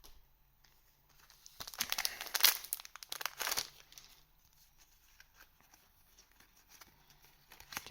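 A trading card booster pack's wrapper being torn open and crinkled, a burst of sharp rustling lasting about two seconds, starting a second and a half in.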